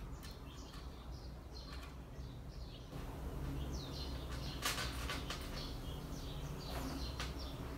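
Faint small clicks and rubbing of a metal curb chain as yarn is drawn through its links with a tapestry needle, sewing the chain onto a crochet bag's edge. Short high chirp-like squeaks recur throughout, with a few sharper clicks about four and a half and seven seconds in.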